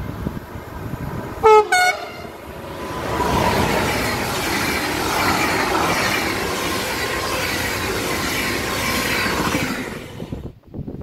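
Train horn sounding two short blasts, then an SNCB passenger train running through the station: steady wheel and rail noise for about seven seconds that cuts off abruptly near the end.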